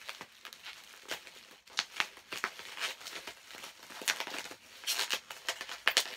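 Tightly sealed plastic wrapping being crinkled and torn open with the fingers: an irregular run of sharp crackles, loudest near the end.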